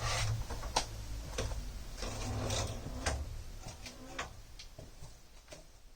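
Workbench handling noise: scattered clicks and light knocks over a low steady hum, fading out toward the end.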